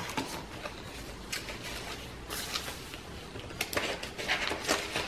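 Paper pages of a chunky handmade junk journal being turned and handled, with soft, scattered rustles and light taps of paper and lace.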